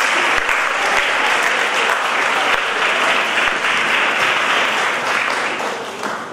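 Audience of students and parents applauding steadily, dying away near the end.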